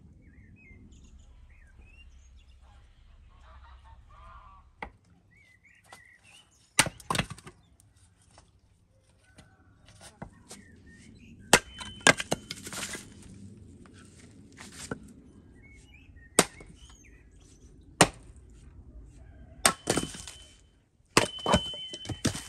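Birds chirping for the first few seconds, then a hand axe splitting firewood on a wooden chopping block: about a dozen sharp chops, some in quick pairs, with split pieces knocking and falling.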